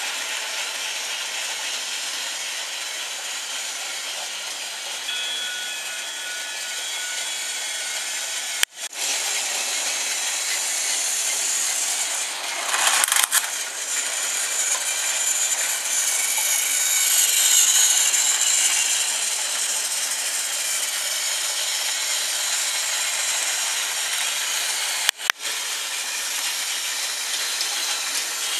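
Battery-powered Trackmaster toy trains running on plastic track: the steady whir of small geared motors and the rattle of wheels and wagons. The sound drops out very briefly twice.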